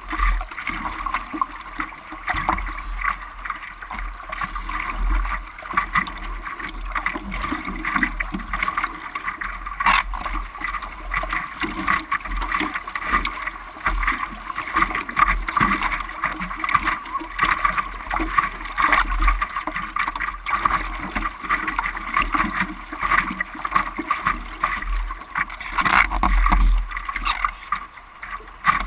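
Sea water noise with wind rumbling on the microphone.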